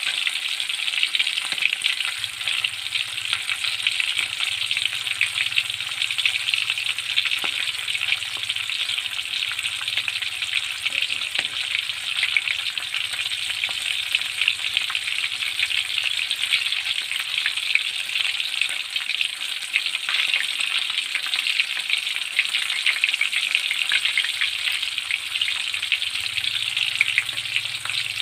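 Milkfish pieces frying in hot oil in a steel wok, sizzling steadily with a dense crackle of fine pops.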